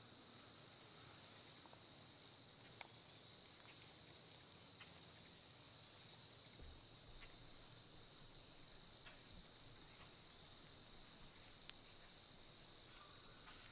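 Faint, steady high-pitched chorus of insects in the woods, with two sharp clicks, one about three seconds in and a louder one near the end.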